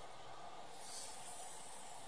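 Faint steady hiss of room tone, with a soft, brief rustle about a second in.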